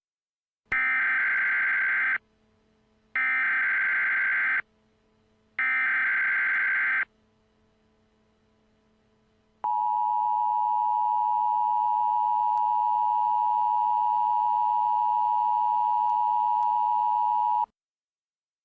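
Mock Emergency Alert System tones: three short bursts of SAME header data tones, each about a second and a half. Then the two-tone EAS attention signal holds steady for about eight seconds and cuts off sharply, the cue that a voice alert message is about to follow.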